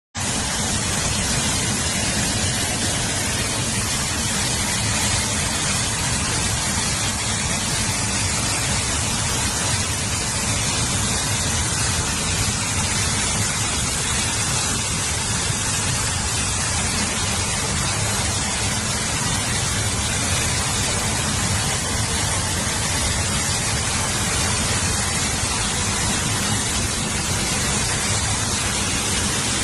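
Heavy rushing water: a steady, unbroken noise.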